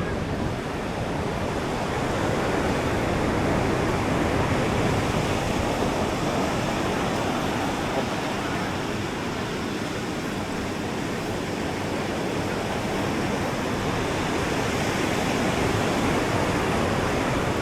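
Ocean surf washing onto a sandy beach: a steady rush that swells and eases.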